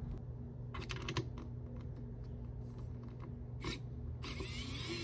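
Light clicks and handling noise of small computer hardware parts being worked by hand, over a steady low hum, with a longer scraping, rustling stretch near the end.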